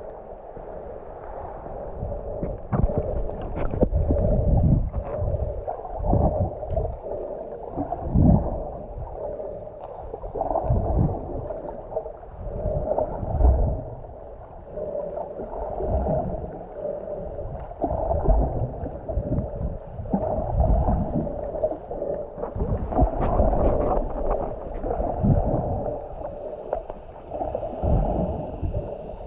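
Sea water sloshing and gurgling around the camera, muffled, in irregular surges every second or two, as heard while swimming and snorkeling.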